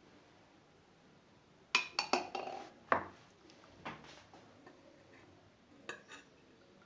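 A spoon and glassware clinking together: a quick cluster of sharp clinks about two seconds in, another a little later, and two lighter taps near the end.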